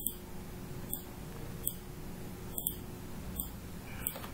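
Computer mouse clicking: about six single, sharp clicks spaced roughly a second apart, over a faint steady hum.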